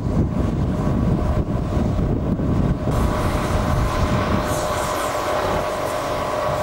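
Wind rumbling and buffeting on the microphone. About three seconds in it gives way to an engine of heavy machinery running steadily with a whine.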